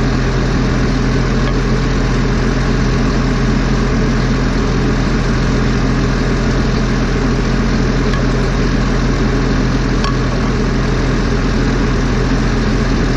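Heavy diesel engine of a forestry machine idling steadily with a constant low hum.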